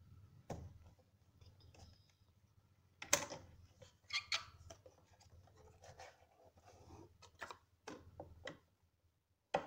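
Cardboard smartwatch packaging being handled: scattered scrapes, taps and sliding as the box is turned over and a black inner box is slid out. The sharpest taps come about three seconds in and again just before the end.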